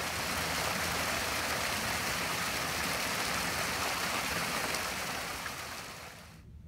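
Steady rushing of flowing water, like a stream or small waterfall, a dense even hiss that fades out near the end.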